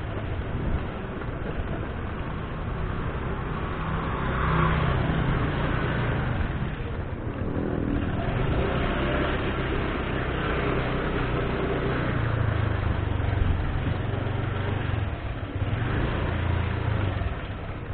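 Motor scooter engine running while ridden, its low note rising and falling with the throttle, over a steady rushing noise.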